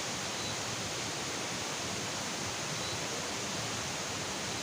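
Steady, even rushing hiss of outdoor background noise with no distinct events.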